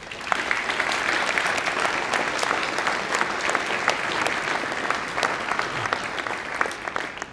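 Audience applauding: a dense clatter of many hands clapping that starts just after the beginning, holds steady and dies away near the end.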